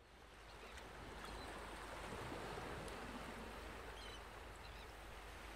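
Sea surf breaking and washing up a sandy beach, a steady rushing that fades in from silence and swells over the first couple of seconds.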